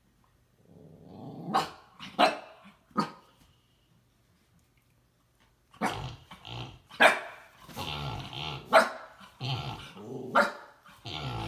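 Mini pig snoring: three sharp snores, a pause of a couple of seconds, then a quicker run of rasping snores.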